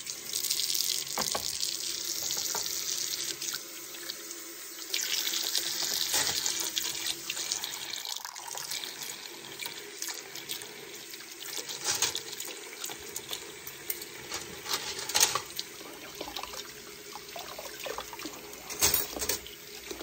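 Kitchen faucet running steadily into a metal pot of silverware in the sink, with a few sharp clinks of forks and spoons as they are scrubbed under the stream.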